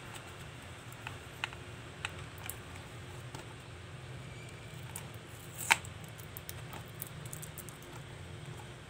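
Scattered small clicks and taps from an SSD's packaging being opened by hand, with one louder click a little past the middle, over a steady low hum.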